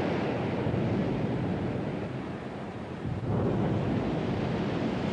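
Waves breaking on a rocky shore: a steady rush of surf that eases off about two seconds in, then surges up again as another wave comes in just past three seconds.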